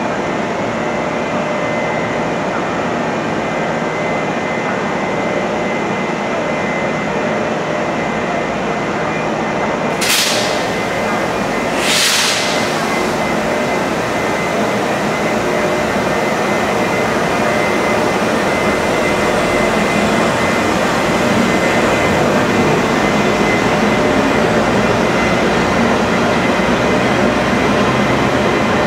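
Freight train hauled by TRA E200-class electric locomotives pulling out and passing slowly: a steady running rumble with a faint steady whine, growing a little louder in the second half. Two short hisses come about two seconds apart, about ten seconds in.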